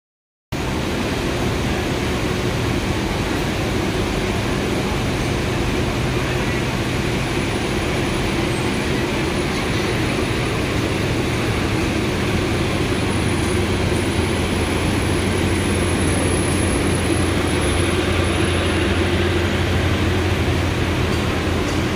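Diesel engine running steadily, a continuous loud drone with a low hum. It is most likely the diesel generator sets of a train's brake and generator car.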